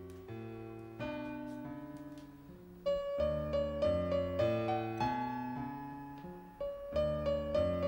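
Solo piano music: chords over a low bass line, each note struck and then fading. It grows louder about three seconds in.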